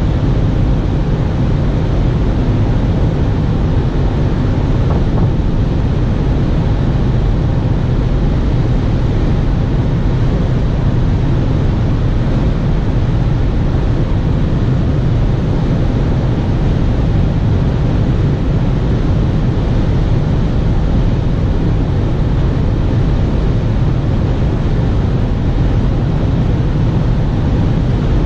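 Cabin noise of a Ford S-MAX cruising at motorway speed: a steady, deep drone of tyre and wind noise that holds evenly throughout.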